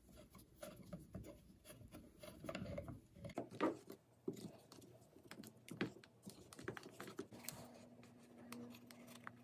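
Faint clicks, scratches and taps of a screwdriver and a hex key working at small screws in the plastic housing of a Stanley FatMax rechargeable spotlight, with a few louder knocks as the plastic case is handled on a wooden bench. The screws are stripped and will not come out.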